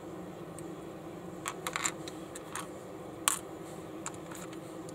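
Small plastic building bricks clicking as they are handled and picked off a baseplate: a quick run of light clicks, then a sharper single click, and a few more scattered taps, over a steady low hum.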